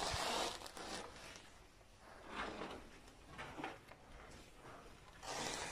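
Irregular scuffing and scraping of people moving on foot through a brick tunnel, a few short gritty scrapes spaced a second or so apart.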